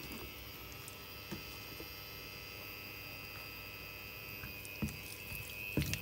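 Diced raw beef being pushed around a stainless steel frying pan with a silicone spatula: soft squishing and a few light knocks of the spatula on the pan, the loudest near the end, over a steady faint hum.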